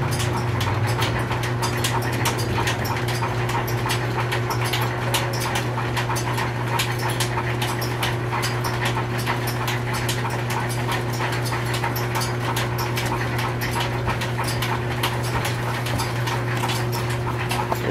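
Belt-driven line-shaft drive running an antique Canedy-Otto camelback drill press. It makes a steady hum with rapid, uneven ticking from the flat belts, which are run loose.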